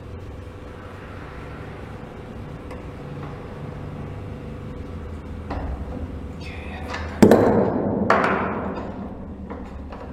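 Metal knocks on a 2018 Indian Scout Bobber's front axle as it is worked out of the forks: a low steady hum for about five seconds, then a few sharp ringing knocks, the loudest about seven seconds in.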